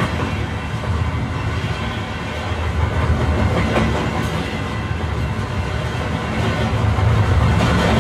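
A train running: a steady low rumble with some clatter, a little louder near the end.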